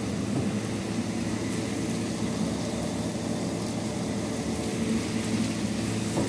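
A steady low hum and rumble, like a motor running.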